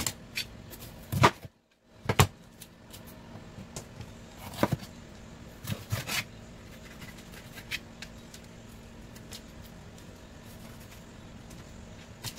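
Kitchen knife cutting bell peppers on a thin plastic cutting mat: irregular knocks of the blade against the board, several sharp ones in the first few seconds, then fainter scattered taps.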